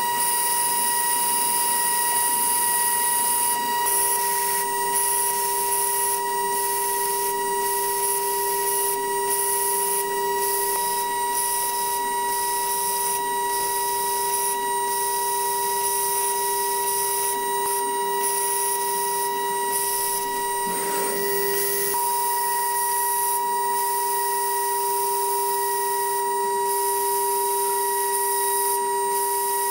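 High-frequency spindle of a DATRON M8Cube CNC milling machine running at constant speed with a steady high whine, while a fine engraving cutter engraves lettering into an aluminium panel. A hiss from the cutting breaks off and starts again many times as the tool moves between strokes.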